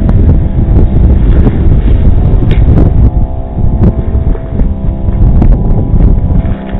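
Wind buffeting the microphone in heavy low gusts, with steady sustained tones of background music running underneath.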